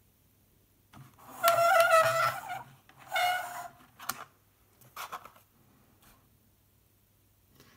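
Hard plastic RC car body shell squeaking twice as it is worked loose from its clip-on pins, then a few sharp clicks as it comes free of the chassis.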